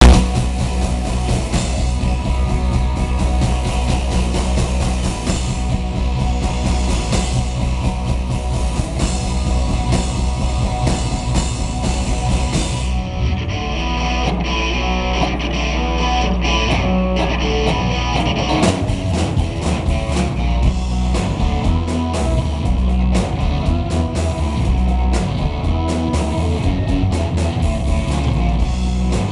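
Rock band playing live, with two electric guitars, a bass guitar and a drum kit. The sound thins out for a few seconds around the middle, then the drums come back in at full band.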